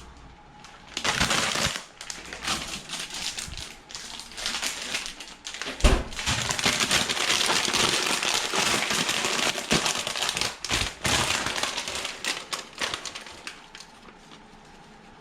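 Salad being handled and put onto a plate: crinkling and rustling with many small crackles, in a short spell and then a longer one. There is a sharp knock about six seconds in.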